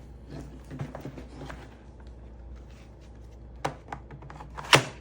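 Hard knocks and clicks as a battery pack is handled and fitted into a cordless chainsaw, with a sharp, loud click near the end; the saw itself is not running.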